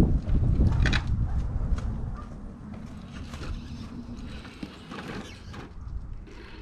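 Radio-controlled rock crawler with a 550 Axe motor crawling slowly over rocks: motor and drivetrain whirring, with scattered clicks and scrapes of tyres and chassis on stone. A heavy low rumble, loudest in the first two seconds, lies under it.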